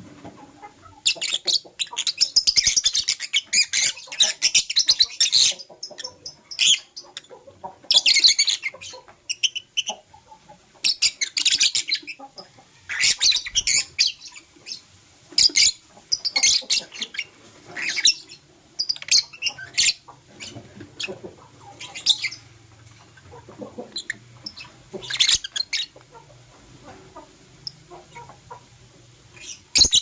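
Lovebirds chirping and chattering in shrill, rapid bursts: a dense run of about four seconds starting about a second in, then shorter bursts every second or two.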